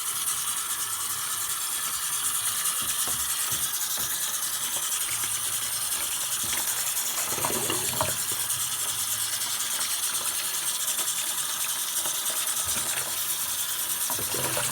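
Tap water running steadily into a sink while conditioner is rinsed out of a hair weft bundle held under the stream.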